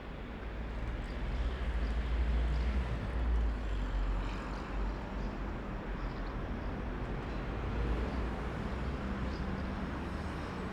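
Roadside traffic: a vehicle's low rumble swells about two seconds in and fades after about four seconds. Steady traffic noise continues underneath.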